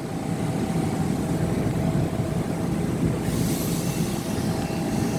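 Long Island Rail Road commuter train pulling out of the station, a steady rumble of wheels and motors with a brief hiss about three seconds in.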